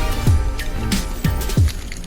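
Background music with deep drum hits that drop quickly in pitch, over sustained tones.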